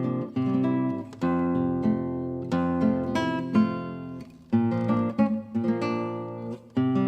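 Background music: plucked and strummed acoustic guitar playing a melody with chords.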